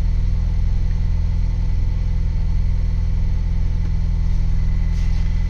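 A 2023 Ford Bronco's 2.3-litre turbocharged four-cylinder engine idling steadily at its raised cold-start warm-up speed, around 1,200 rpm, with the clutch pedal held down. With the clutch disengaged the manual transmission sounds normal, without the cold-start grinding.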